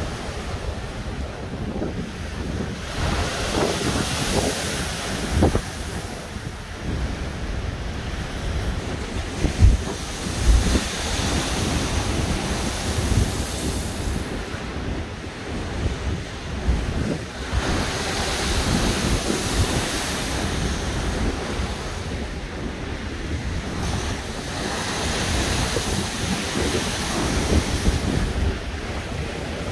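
Storm waves crashing over the promenade railing, the hiss of surf and spray swelling and fading about every seven seconds over a constant low rumble. Strong wind buffets the microphone.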